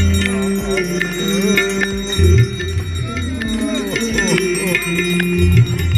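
Hindu evening aarti music: voices singing a devotional chant over held tones, with bells ringing and recurring low beats.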